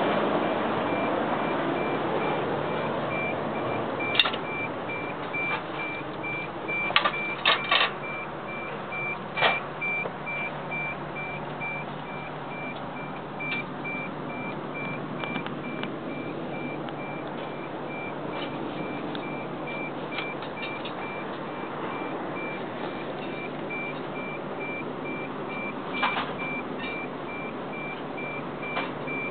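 A steady, high electronic beep repeating about twice a second, like a vehicle warning beeper, over a steady rushing hiss. A few sharp knocks and clicks come through, a cluster of them a quarter of the way in and one more near the end.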